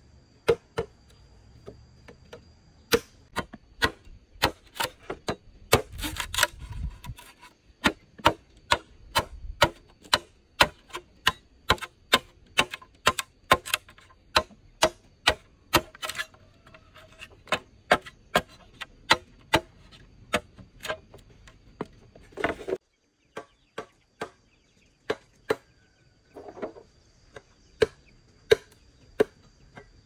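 Repeated sharp blows of a tool on wood, about two a second, chopping or hammering while building, with a brief pause a little past two-thirds of the way through.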